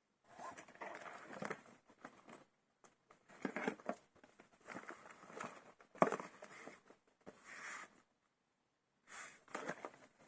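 Small plastic Lego Technic parts being handled: bursts of clicking and rustling with short pauses between them, the sharpest click about six seconds in.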